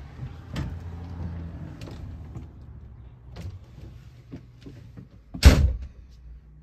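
Footsteps up the RV's entry steps and onto the floor, with a few knocks over a steady low hum. About five and a half seconds in comes a loud, short bang, the entry door shutting, after which the background hum changes.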